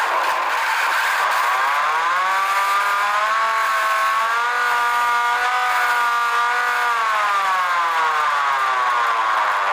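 Emergency alert siren tone that glides up in pitch, holds, then glides back down near the end, over a steady hiss.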